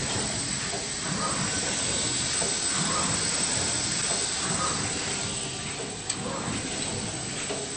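Full-servo bottle screen printing machine running: a steady hiss with soft mechanical sounds repeating about every second and a half, and a single sharp click about six seconds in.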